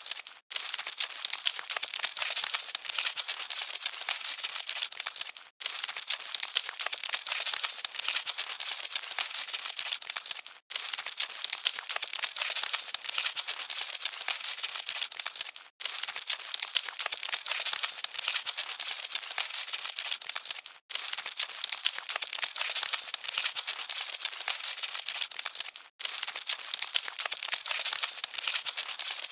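Dense, crackly rustling and scratching presented as cockroaches scuttling. It plays as a loop of about five seconds, with a brief dropout between repeats.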